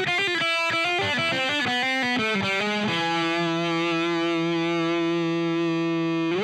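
Background music: a distorted electric guitar plays a quick falling run of notes, then holds one long note from about halfway, bending it upward near the end.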